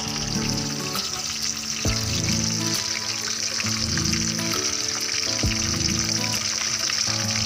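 Fish pieces frying in hot oil in a wok, a steady sizzle. Background music with changing notes plays underneath.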